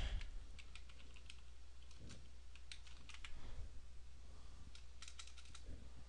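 Computer keyboard being typed on: scattered separate keystrokes, then a quicker run of them near the end.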